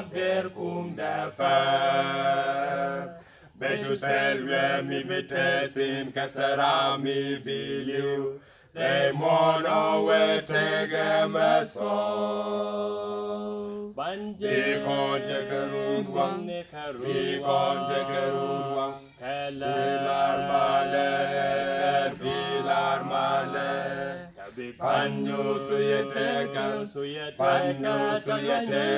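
Male vocal quartet singing unaccompanied, several voices together in harmony. Long sung phrases are divided by brief pauses for breath, with one long held note about halfway through.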